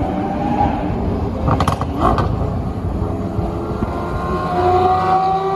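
Racing car engines running at high revs, with one engine note climbing slowly near the end. The sound cuts in and out abruptly, like an inserted sound clip.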